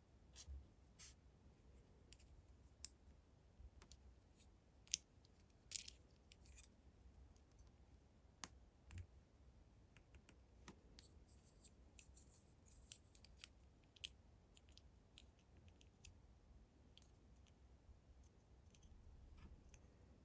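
Faint, scattered clicks and light scratching of small plastic LEGO pieces and packaging being handled, the sharpest click about five seconds in.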